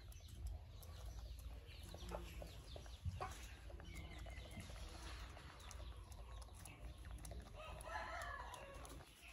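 Chickens clucking, with a longer, louder call about eight seconds in; a single sharp knock about three seconds in.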